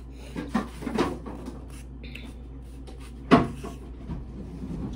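Metal fork clinking and scraping against a plate while mixing rice, a few light knocks with one sharper clack about three seconds in.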